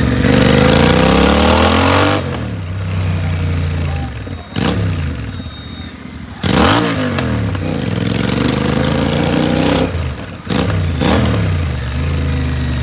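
Royal Enfield Continental GT 650's parallel-twin engine revving with its exhaust removed: about four revs, each climbing in pitch and falling back toward idle, the first and longest over the first two seconds.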